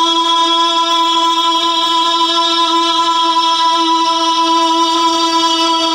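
A man's voice holding one long sung note at a steady pitch through a public-address system, unbroken throughout, as in a drawn-out naat or chant recitation.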